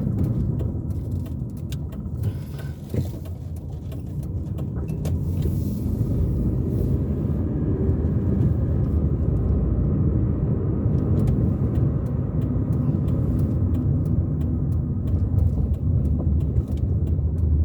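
Car driving along a road: a steady low rumble of engine and tyres that grows louder a few seconds in and then holds.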